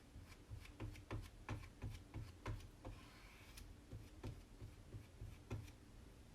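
Chalk paste being worked through a transfer with a squeegee: a series of small taps and clicks, about two or three a second, with a short scrape about three seconds in, over a steady low hum.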